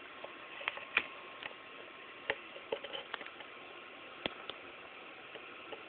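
Light, irregular clicks and scratches from a feeder mouse and a young tiger reticulated python moving on the floor of a plastic tub. There are about ten scattered ticks over a steady hiss.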